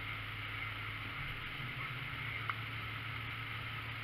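Steady background ambience at an outdoor drag strip: a constant low hum under a faint hiss, with one short click about two and a half seconds in.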